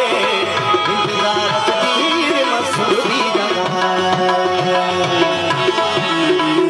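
Live music: a man singing with tabla accompaniment, his voice wavering through ornamented notes in the first half, then held instrumental notes carrying on over the tabla rhythm.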